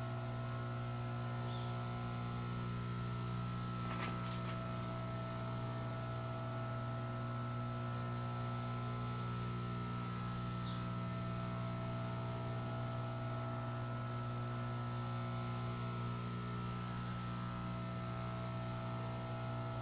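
Steady electric hum from running shop machinery, a constant low drone with several fixed tones and no change in pitch or level.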